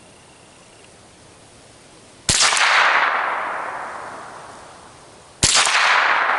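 Two shots from a scoped Ruger 10/22 semi-automatic .22 LR rifle, about three seconds apart, each a sharp crack followed by a long fading echo. They are sighting-in shots fired from a bench rest.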